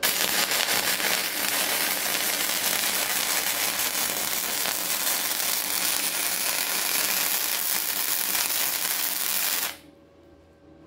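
Sigweld HandyWELD 130 gasless MIG welder running flux-cored wire on 5 mm steel: a loud, steady crackle of the welding arc for nearly ten seconds, cutting off suddenly near the end.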